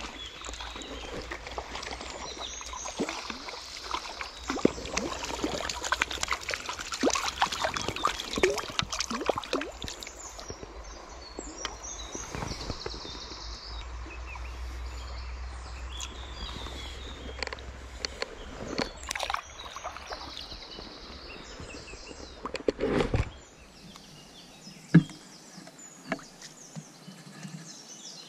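Shallow stream water running, with irregular splashes and clicking handling noises while a caught trout is brought in and handled at the water. Near the end there is a single sharp knock.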